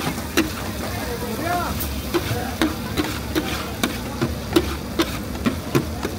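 A metal spatula striking a karahi in a steady rhythm, about two and a half strokes a second, as food is stir-fried, over a low steady rumble.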